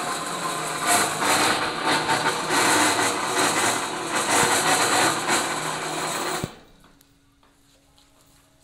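Single-phase electric mini crane hoist (monkey lift) running loud, its motor winding in the rope to haul a load up, then cutting off abruptly about six and a half seconds in.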